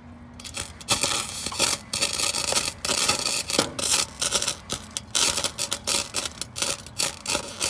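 Electric welding arc crackling and sputtering, starting about half a second in and running in irregular spurts with brief dropouts.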